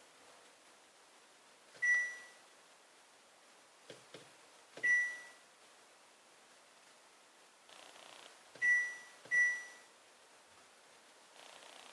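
LG GA-B489 YECZ refrigerator's electronic beeper sounding four short high beeps, the last two close together, the open-door alarm. A couple of faint clicks come just before the second beep.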